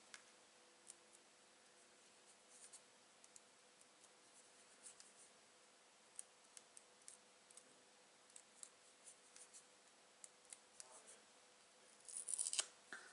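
Faint scattered clicks and light rustles of hands handling card stock and papercraft pieces, with a louder paper rustle about twelve seconds in.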